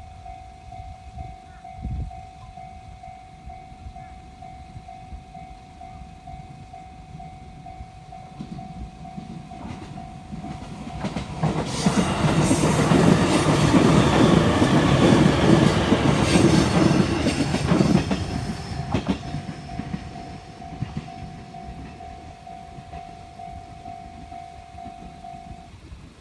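Level crossing warning bell ringing in a steady repeating ding. About halfway through, a train runs past over the crossing for about seven seconds, loud enough to cover the bell. After the train has gone the bell keeps ringing, then stops shortly before the end.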